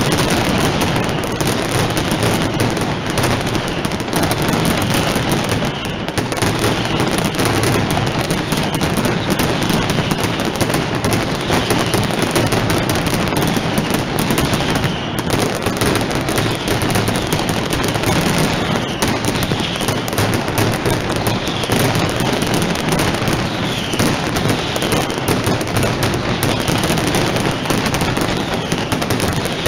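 Mascletà firecrackers going off in a dense, unbroken barrage of rapid bangs with no gaps. Short whistles cut through the barrage every second or two.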